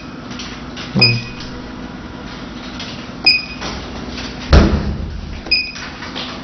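Touchscreen of a lipolaser slimming machine beeping three times, a short high beep at each tap on the settings arrow, over a steady low machine hum. A single loud thump comes about four and a half seconds in, the loudest sound.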